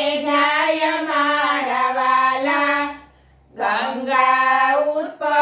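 Women's voices singing a Gujarati devotional bhajan together, unaccompanied. The line ends about three seconds in, a brief pause follows, then the refrain begins.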